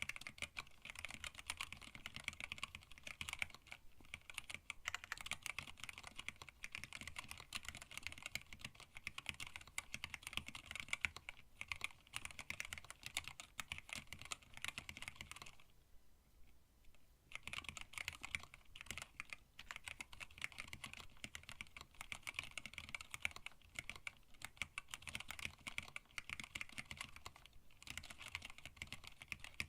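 Steady fast typing on a hand-wired split mechanical keyboard with Tealios linear switches, an acrylic case and plate, and PBT keycaps: a dense run of keystroke clicks and clacks. The typing stops for about two seconds around the middle, then resumes.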